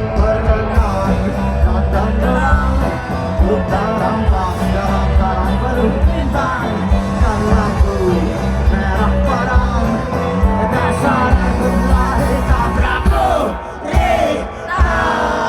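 Live rock band playing loudly, with drums, bass and singing; the music drops back briefly near the end.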